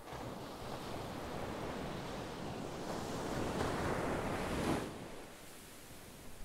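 Ocean surf: a wave surges in, building to its loudest about three-quarters of the way through, then drops away quickly as it washes out.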